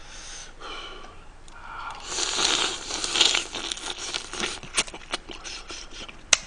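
Close-miked eating of stewed flower crab: the shell crunching and crackling as it is bitten and chewed, loudest about two to four seconds in, then a run of sharp clicks near the end. The crab is frozen crab with little meat on it.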